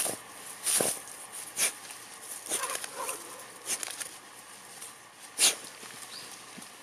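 A dog pushing soil and snow with its nose to bury a piece of pork, in a handful of short scuffing bursts, the loudest late on.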